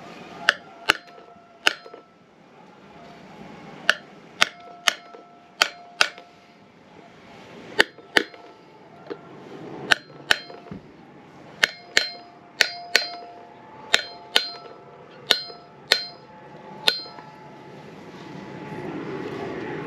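Steel hammer tapping a metal seal driver to seat a grease seal into a caravan brake drum's wheel-bearing hub. About twenty sharp metallic strikes, each with a short ring, come in loose pairs and threes and stop a few seconds before the end.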